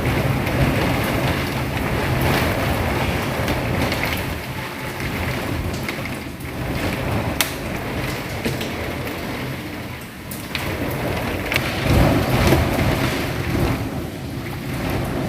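Heavy rain pouring in a thunderstorm with strong wind, with a few sharp drop impacts and a deep rumble that swells about twelve seconds in.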